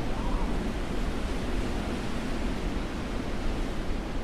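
Blizzard wind blowing steadily, a low rushing noise with a faint wavering whistle about the start.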